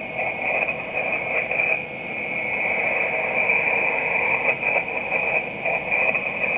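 Amateur radio transceiver receiving on the 12-metre band in upper sideband, between transmissions: a steady hiss of band noise and static with a continuous high whistle over it, and faint garbled flickers of other signals.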